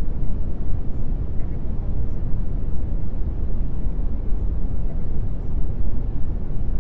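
Steady, loud low rumbling noise, even and unbroken, with no tones or rhythm in it.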